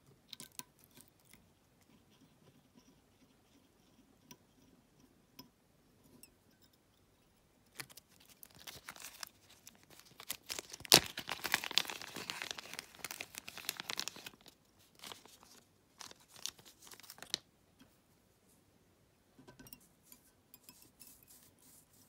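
Clear plastic bag of fly-tying material crinkling and rustling as it is handled, with one sharp click partway through as the loudest moment. Scattered light clicks and taps of small tools and materials come before and after.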